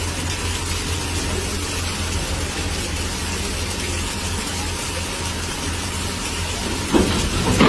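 Excavator engine running steadily with a low hum, then a sudden thump just before the end.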